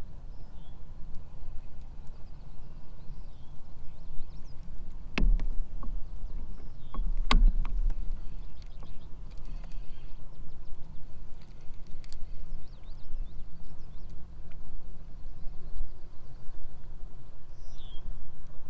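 Low, unsteady rumble of open-water ambience around a fishing kayak, with two sharp knocks about five and seven seconds in. Faint, short bird chirps come through now and then.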